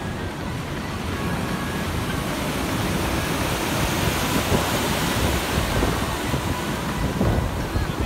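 Ocean surf breaking and washing, with wind buffeting the microphone; the rush of the water grows louder about halfway through.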